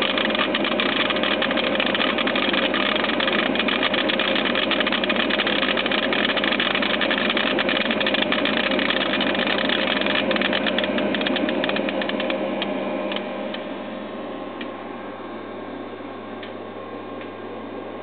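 Vibrating feeder tray of a rice grain analyzer running with a steady buzz and hum, rice grains clicking as they slide and drop off the tray. About twelve seconds in the sound drops in level, leaving a fainter hum with only a few scattered ticks.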